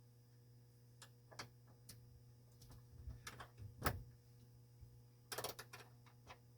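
Wrench turning a nut on a stainless steel refrigerator door hinge brace: light, irregular metallic clicks and taps, with the loudest knock about four seconds in and a quick run of clicks a little after five seconds. A faint steady low hum lies underneath.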